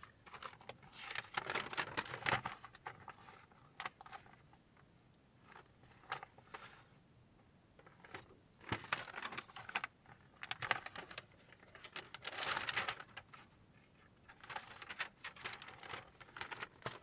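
Hands handling the radio's wiring harness and plastic connectors: rustling and light clicks in repeated short bursts of a second or two, with quiet gaps between.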